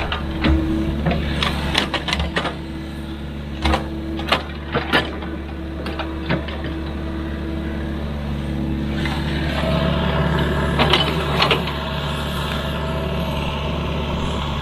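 Sany excavator's diesel engine running steadily, with sharp metallic clanks and knocks scattered through. About nine and a half seconds in the engine works harder and a steady hydraulic whine comes in.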